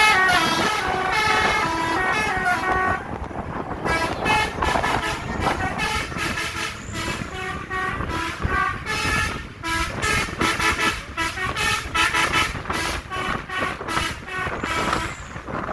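Bus 'telolet' multi-tone musical horn playing a stepping tune for about the first three seconds, then shorter horn toots over vehicle noise.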